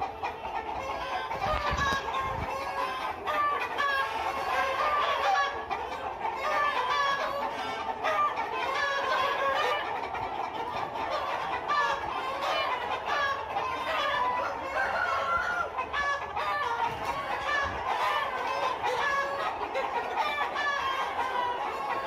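A flock of Aseel chickens clucking, with many short calls overlapping and going on throughout.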